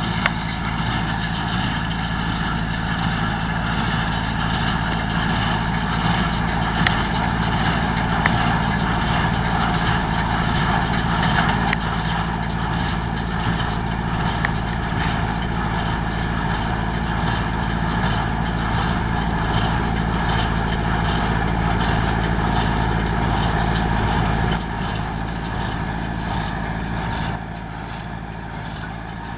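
Massey Ferguson 165 tractor engine running steadily while pulling and driving a Massey Ferguson 128 small square baler in the hay. The sound drops in level twice near the end.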